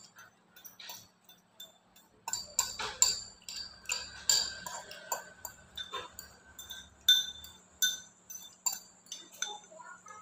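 Metal cutlery clinking and scraping against a ceramic bowl as noodles are shovelled from it to the mouth. There are repeated short ringing clinks, one or two a second, getting busier after about two seconds.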